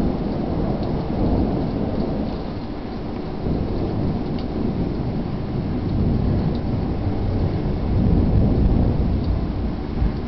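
Thunder rumbling on and off over steady heavy rain during a severe thunderstorm, swelling loudest about eight seconds in.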